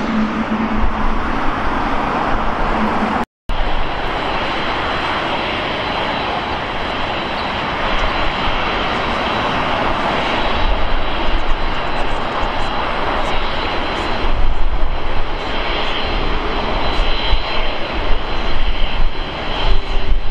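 Boeing 747 jet engines running at taxi power as the airliner rolls along the taxiway: a steady rushing roar with a thin high turbine whine. The sound drops out for a split second about three seconds in.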